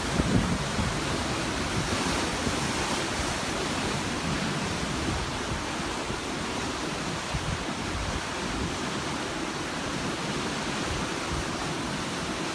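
Sea waves washing on the shore, a steady rushing hiss, with wind buffeting the microphone.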